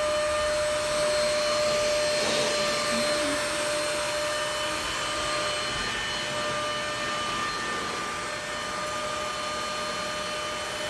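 Vacuum cleaner running on carpet: a steady motor whine over a rush of air.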